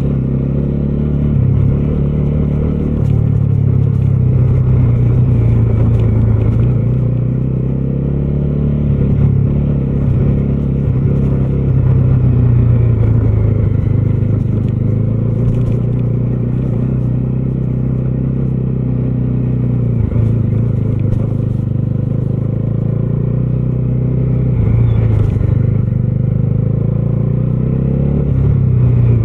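Bajaj Dominar 250's single-cylinder engine running steadily while riding, its note rising and falling a little with the throttle.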